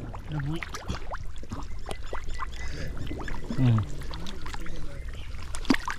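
Water splashing and pouring in a shallow, nearly drained pond, with many short sloshes and splashes. Brief low voice sounds come twice.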